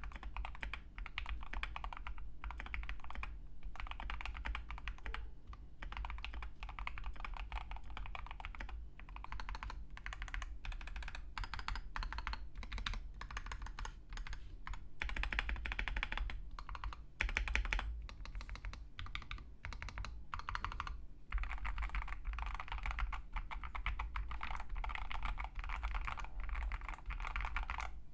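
Mechanical keyboard with Gateron Oil King linear switches and XDA-profile keycaps being typed on continuously: a fast, dense run of key clacks with a few brief pauses.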